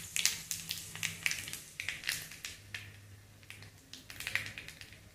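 Mustard seeds popping and spluttering in hot oil in a kadai, with urad dal frying alongside: sharp, irregular crackles that grow sparser and fainter, with a short flurry again near the end.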